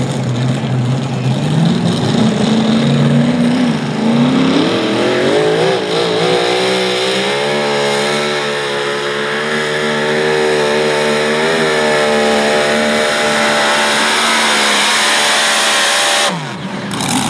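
Mini modified pulling tractor's engine revving up, its pitch climbing steeply over several seconds, then held at high revs with a slight warble for about eight seconds under load during a pull. The sound breaks off sharply near the end.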